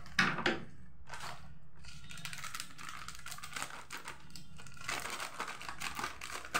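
Foil-lined plastic snack packet crinkling as it is handled and cut open with scissors, with a louder rustle right at the start.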